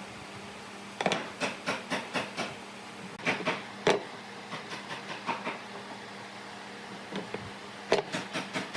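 Irregular sharp knocks and clicks in clusters, over a faint steady hum.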